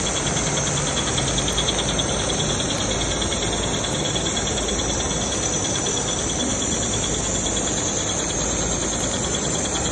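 HighTex BAS-342GXL programmable pattern sewing machine running steadily at speed, its needle stitching in a rapid, even, high ticking over a constant mechanical hum.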